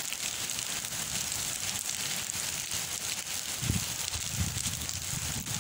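Heavy tropical downpour pouring steadily onto paved ground, a continuous hiss, with gusts of wind buffeting the microphone as low rumbles in the second half.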